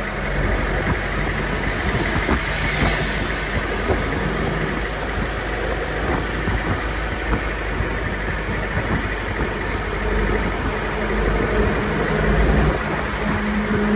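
Mahindra MM540 jeep's engine running at road speed, heard from the driver's seat with road and wind noise. The engine hum grows a little louder near the end.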